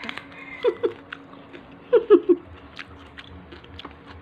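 A person chewing a mouthful of rice with sambal close to the microphone: soft wet clicks of chewing, with a few short voiced mouth sounds, two just under a second in and three about two seconds in.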